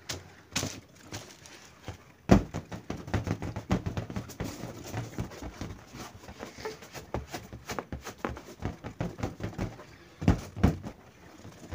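Hands rubbing and tapping a large latex balloon with smaller balloons inside it: a run of quick rubbery squeaks and light taps, with one sharp hit about two seconds in and two loud hits close together near the end. None of the balloons bursts.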